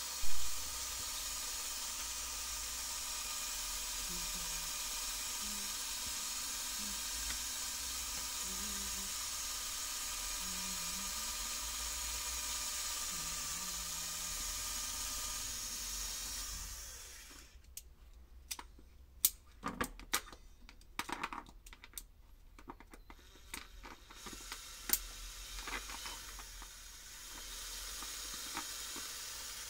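A brief thump, then a steady hiss that stops abruptly about 17 seconds in. After it come scattered sharp clicks and knocks, with a short stretch of steady noise near the end.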